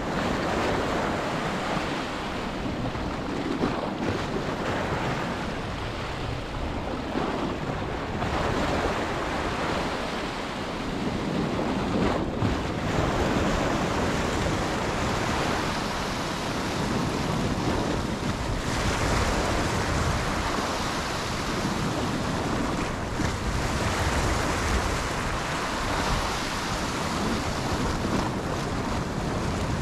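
Sea waves washing, with wind blowing across the microphone: a steady rushing noise.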